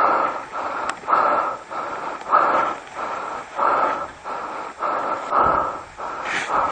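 A person breathing hard and fast close to the microphone, an even run of loud panting breaths about three every two seconds, as from hurrying on foot through scrub.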